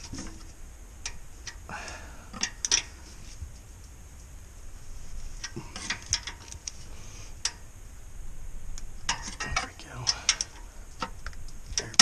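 Hand ratchet clicking in short runs as a nut at the starter is tightened, with scattered clicks and knocks of the tool and fittings between the runs.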